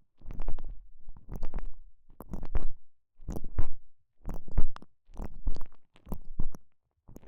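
A stretchy TENGA Egg sleeve squishing around a microphone pushed inside it. It is worked in a regular rhythm of about one squeeze a second, with crackly rubbing in each stroke.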